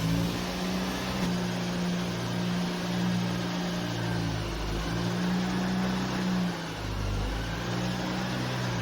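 Land Rover Series 3's freshly rebuilt engine running while the vehicle is driven on the road. The engine note shifts in pitch a few times, with a brief dip in level about six and a half seconds in.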